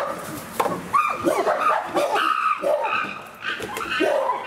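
Chimpanzees calling excitedly: a quick run of short, high, pitch-bending calls, with a sharp knock about half a second in.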